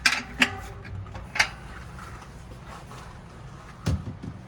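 Sharp metallic clicks of a 15mm wrench working the bicycle's front axle nuts, three in the first second and a half, then two low thumps near the end.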